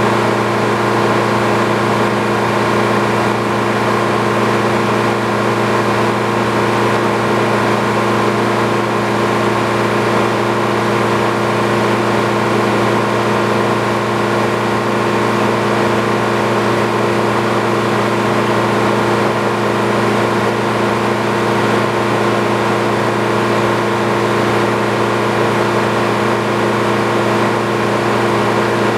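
Sawmill engine running steadily at an even speed, with no change in pitch.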